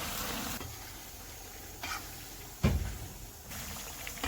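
Kitchen handling sounds: a soft hiss that drops away after about half a second, a light click near two seconds, then a single sharp knock of kitchenware about two and a half seconds in.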